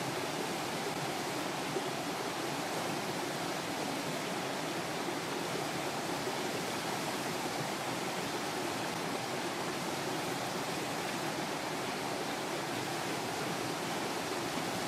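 Steady rushing outdoor noise with no distinct events.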